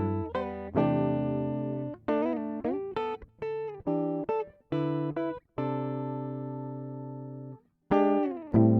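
Background music: separate notes struck and left to fade, then a long held chord that stops shortly before the end, followed by a brief gap before the notes resume.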